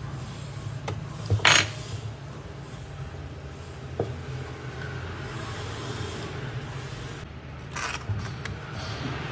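A few sharp metallic clinks and a scrape, the loudest about a second and a half in, over a low steady hum.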